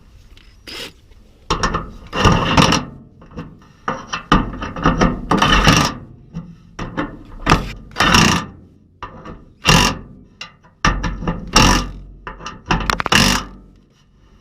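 Irregular clanks, rattles and scrapes, a dozen or so short bursts, as the 1970 Chevrolet C10's tailgate latch mechanism and its rods are worked on and reassembled.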